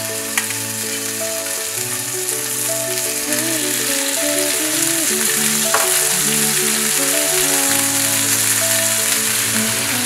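Beef steaks sizzling as they sear in a hot cast-iron skillet, the sizzle growing louder as more steaks go in, with a couple of sharp clicks. Soft background music with held notes plays along.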